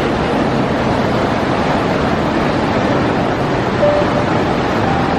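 Large waterfall roaring: a loud, steady rush of plunging water.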